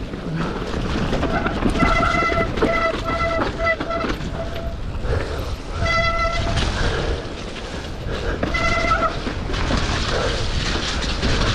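Mountain bike disc brakes squealing in several short pitched bursts as the rider brakes, over steady wind and trail noise.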